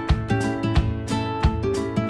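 Background music with a steady beat and strummed guitar.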